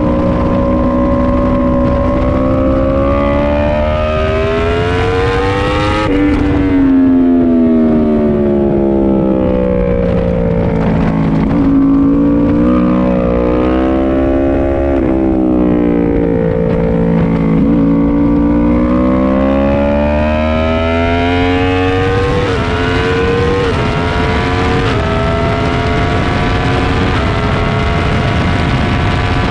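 Sport motorcycle's inline-four engine at track speed, heard from on board. The revs rise, fall and swell again through a run of corners. Near the end it accelerates hard down a straight, rising in pitch with three quick upshifts.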